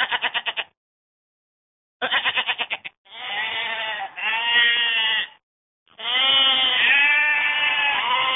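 Livestock bleating in a series of calls. A short quavering bleat comes first, then after a pause another quavering bleat runs into a long drawn-out one. A second long bleat starts near the end.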